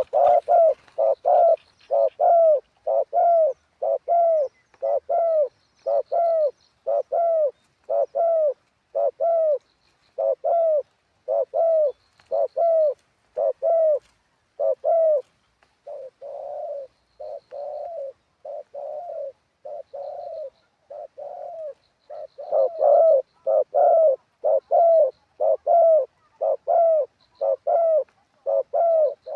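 Spotted dove cooing over and over in a long series of about two arched notes a second. The notes soften for several seconds in the middle, then come back loud. Faint high chirps of a small bird are heard now and then.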